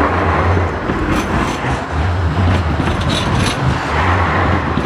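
Road traffic passing close by, with a tram running along the adjacent tracks; a low rumble swells and fades about three times.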